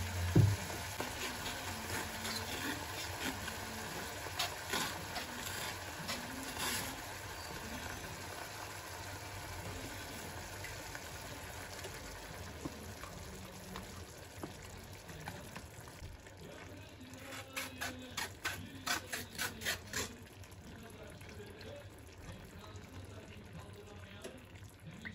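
Cooking cream poured from a carton into a hot frying pan of sautéed mushrooms: a steady liquid pouring sound over a low hiss, with a run of sharp clicks about two-thirds of the way in.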